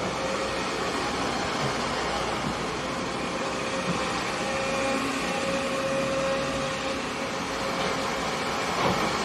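Kobelco hydraulic excavator running steadily as it works, a continuous engine hum with a faint steady whine that grows stronger for a second or two around the middle.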